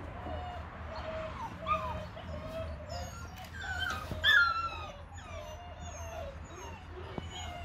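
Belgian Malinois puppy whimpering and yipping in a run of short, high, wavering cries, loudest about four seconds in.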